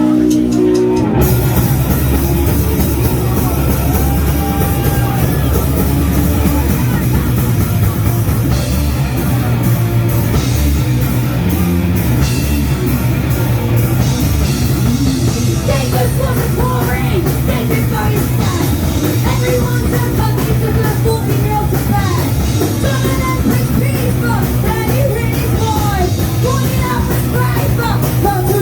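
Punk rock band playing live: distorted guitars, bass and drums with crashing cymbals come in together about a second in after a held note, and a voice sings over the band in the second half.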